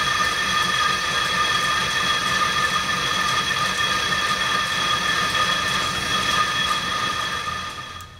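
Belt-driven lathe cutting across the face of a large spinning metal disc, the tool and work ringing with a steady high-pitched squeal made of several tones at once. It fades out near the end.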